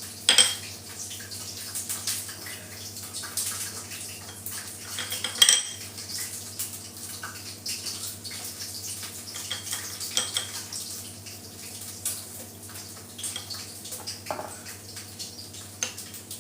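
Kitchen utensils clinking and scraping against dishes and pans, with two louder ringing metal clinks, about half a second in and about five and a half seconds in.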